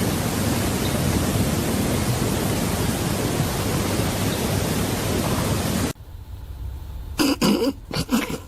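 Loud, steady rushing noise with no pitch, cutting off abruptly about six seconds in. A much quieter background follows, with a few short sounds near the end.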